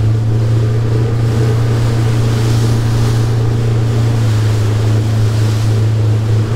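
Small fishing boat running at speed: its motor drones steadily, with water spray rushing off the hull and wind on the microphone.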